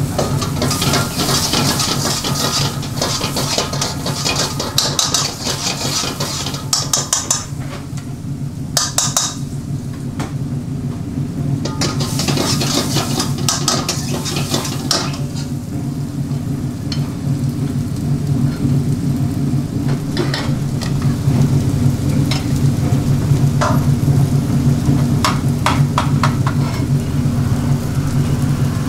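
Food sizzling in a steel wok over a high gas flame as it is stirred and scraped with a metal ladle, with repeated clinks of the ladle against the wok. A steady low hum runs underneath.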